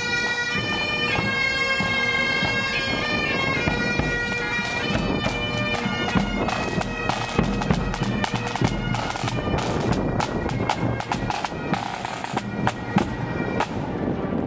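Scottish pipe band marching past: bagpipes play a tune over their steady drone, with snare and bass drums. The pipes are strongest in the first half; from about halfway on the drum strokes take over as the drummers at the rear go by.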